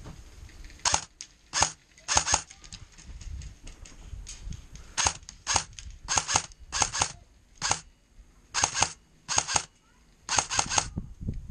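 Airsoft M4A1 rifle firing a string of single shots and short bursts of two to four, about a dozen sharp cracks with short pauses between them.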